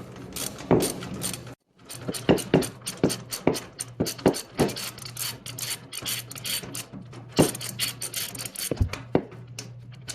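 Socket ratchet clicking in irregular runs as a 5/8 socket backs out the bolt holding a broken garage door opener pulley, with a wrench holding the nut on the other side.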